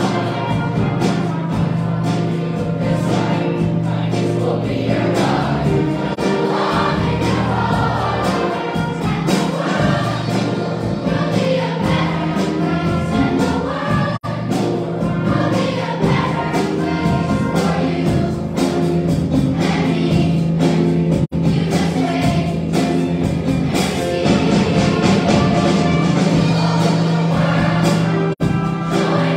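A large middle school choir singing an upbeat pop-gospel arrangement with a string orchestra of violins and cellos accompanying. The sound cuts out for an instant three times.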